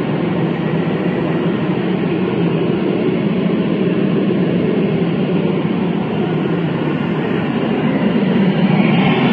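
Pink noise test signal played loud through a car sound system's speakers while it is being equalized with a real-time analyzer: a steady hiss, a little louder near the end.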